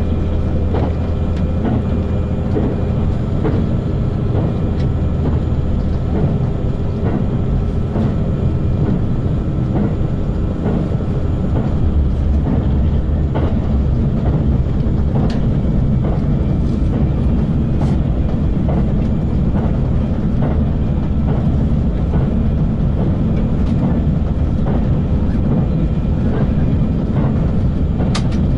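Running noise heard inside a JR Central HC85 hybrid diesel railcar at speed, about 100 to 108 km/h and picking up slightly. A steady low rumble and drone from the running gear and power unit, with light, irregular clicks from the rail joints.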